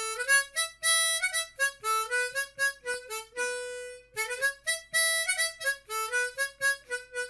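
Solo instrumental melody of quick, separate notes, used as intro music.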